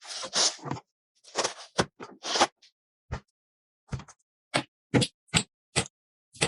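Computer parts being handled during a PC build: scraping and rubbing at first, then a run of sharp clicks and taps about every half second.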